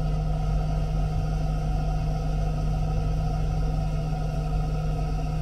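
Steady low hum and rumble of an idling vehicle engine, unchanging throughout.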